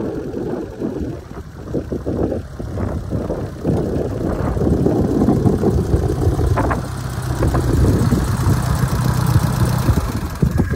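1940 Ford 9N tractor's four-cylinder flathead gasoline engine running. From about halfway through it idles steadily, heard close to the engine block.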